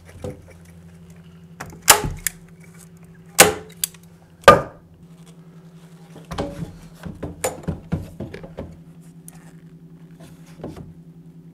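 Staple gun firing three loud, sharp staple shots about a second apart, fastening cardboard shims to a wooden stud, followed by lighter clicks and knocks of handling, over a faint steady hum.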